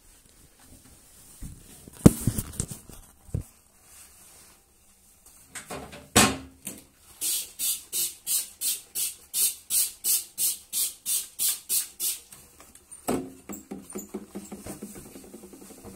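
A toilet being scrubbed by hand in quick back-and-forth strokes, about four a second for some five seconds, with a sharp knock early on and a few bumps and clatter of cleaning things around it.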